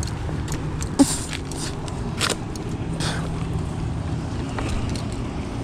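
Footsteps and brush crackling as people push through overgrown woodland undergrowth, a few sharp rustles and snaps standing out, over a steady low background rumble.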